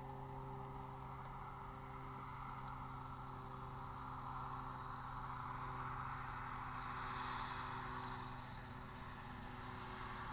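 Distant vehicle noise over a steady low hum. The noise swells to a peak about seven seconds in and then eases off.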